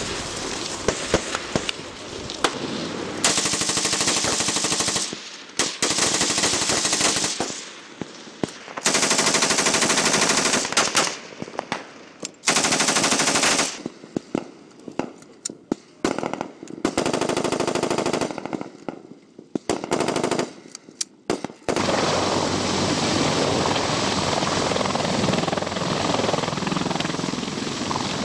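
Automatic weapons and rifles firing in rapid bursts, heavy and sustained at times, with abrupt breaks between stretches of fire; near the end the firing becomes a steadier, continuous stream.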